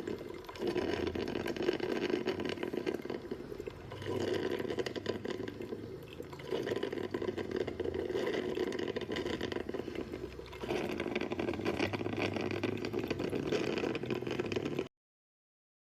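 Hanabishi HCM-10B drip coffee maker brewing: a steady watery hiss that jumps abruptly in level a few times, then stops suddenly about a second before the end.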